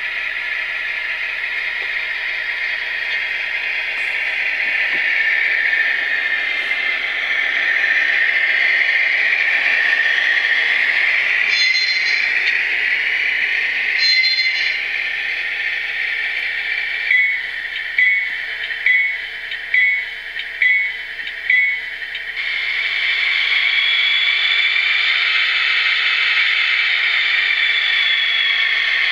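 HO scale GE GEVO diesel locomotive model's DCC sound decoder playing a diesel engine sound through its small speaker, growing louder about eight seconds in as the model pulls away. Two short tones sound midway, then the locomotive bell dings about eight times at roughly two strokes a second.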